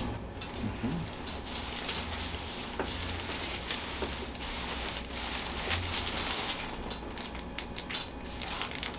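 Steady rustling and rubbing of hands, clothing and a treatment table as a patient is handled during chiropractic work, with a few small sharp clicks near the end.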